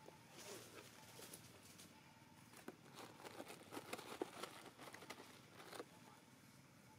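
Faint, scattered clicks and crinkles of monkeys handling and eating soft orange fruit on dry leaf litter. They are busiest from about two and a half seconds in until just before six seconds.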